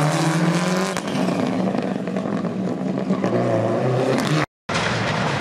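Rally car engine revving hard under acceleration, its pitch climbing over the first second, then running on at high revs. The sound cuts out completely for a moment about four and a half seconds in.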